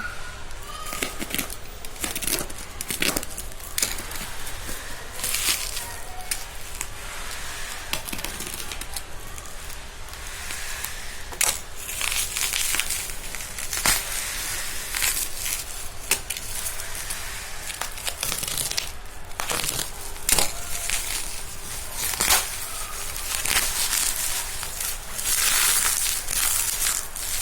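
Packaging being unwrapped by hand: plastic crinkling and rustling, with scattered short clicks and taps.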